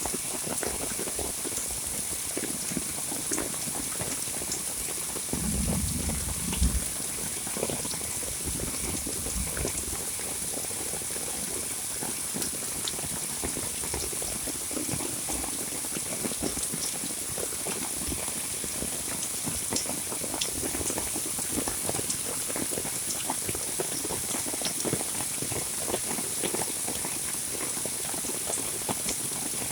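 Heavy monsoon rain falling steadily, a dense patter of drops over a constant hiss. About six seconds in, a brief low rumble rises over it.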